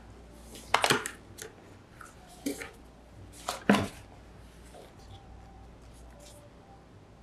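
Packaging being handled while a microphone's cardboard box is unboxed: a few sharp scrapes and taps, the loudest about a second in and just before four seconds in, then only faint rustling.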